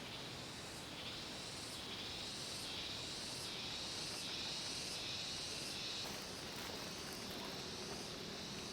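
Steady, high insect buzzing that swells and eases about once a second, typical of a forest chorus of cicadas or similar insects.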